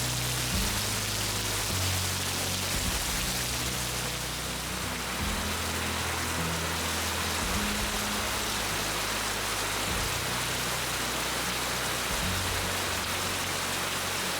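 Heavy rain falling steadily, with background music of sustained low chords that change every second or two.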